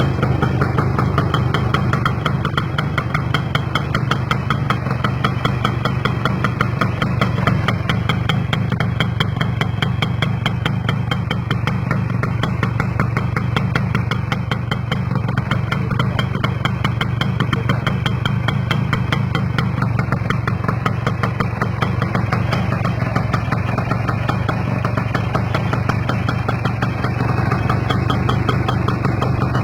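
Kawasaki GTO motorcycle's two-stroke single-cylinder engine idling steadily.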